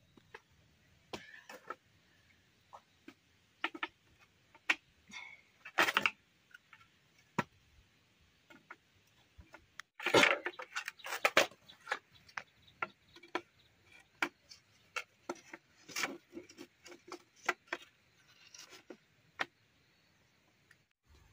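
Bamboo poles and crossbars knocking and clattering against each other as a bamboo rack frame is handled and fitted together: scattered sharp hollow knocks, with a louder cluster about ten seconds in.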